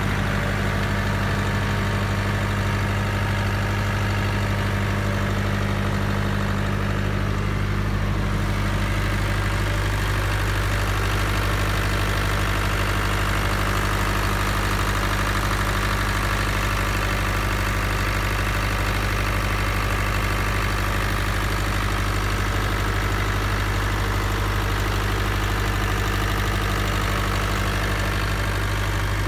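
Diesel engine of a 10 kW silent diesel generator set running steadily, a constant low drone with an even mechanical hum above it.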